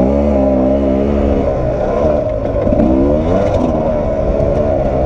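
Sherco 300 SE-R two-stroke enduro motorcycle engine under way on a dirt trail, its pitch rising and falling with the throttle, with a rising rev about three seconds in and some light clatter.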